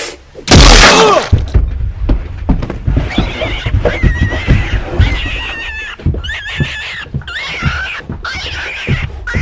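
A loud cry about half a second in, then a run of high-pitched, wavering squeals, with dull thumps underneath.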